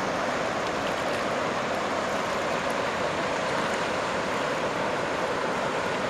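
A swollen river rushing through rapids with a steady, even noise of fast water. The river is running high and hard after heavy rain, covering its rocks.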